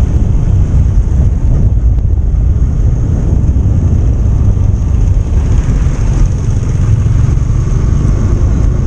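Motor scooter running at cruising speed, heard as a steady low rumble of engine and wind buffeting the rider's microphone.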